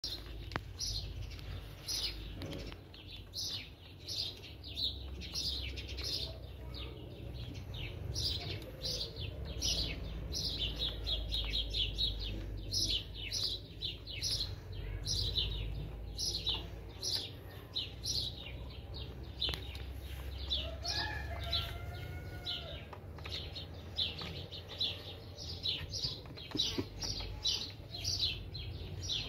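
Small birds chirping steadily in a rapid series of short, high, falling chirps, two to three a second, over a low background rumble.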